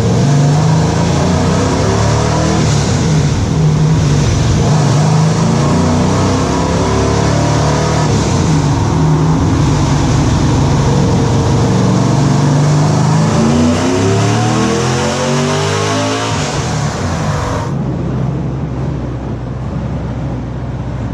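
Sandrail's 6.0-litre LS V8 with LS3 heads running on a chassis dyno during a tuning pull with added spark advance. The revs shift for a while, then climb steeply for a couple of seconds before the throttle is let off about 17 seconds in and the engine winds down.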